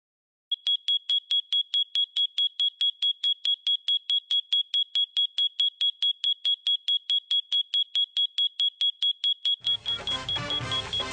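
Electronic alarm clock beeping: a fast, even run of single high beeps, about five a second, waking a sleeper. Music comes in near the end over the beeps.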